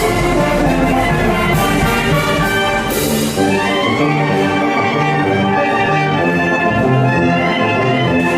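Instrumental ensemble music led by brass instruments, playing sustained chords over a bass line.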